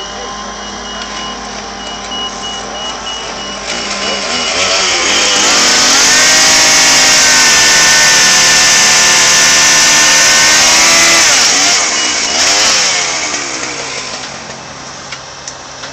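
Mobile crane's diesel engine revving up to power the hoist and swing while it carries a railcar truck, holding at high revs for about five seconds, then dropping back toward idle.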